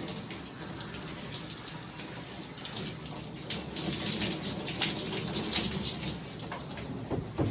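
Running water splashing over a dog being rinsed in a bathtub, with the splashing louder in the middle.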